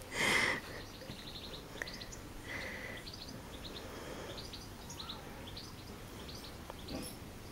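Small birds chirping and tweeting, many short high chirps scattered throughout. A brief louder burst comes right at the start.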